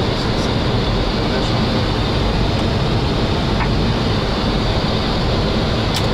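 Steady rushing flight-deck noise of a Boeing 737 on final approach: airflow and engine noise heard inside the cockpit.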